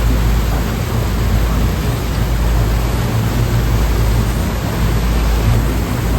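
Ocean surf on the Taiwan Strait: a steady, continuous wash of waves with a deep rumble underneath and no separate breaking crashes.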